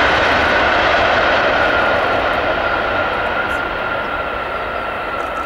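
Boeing 777-300's jet engines running loud during the landing rollout, with a steady high whine that glides slowly down in pitch. The noise fades from about two seconds in as the airliner rolls away.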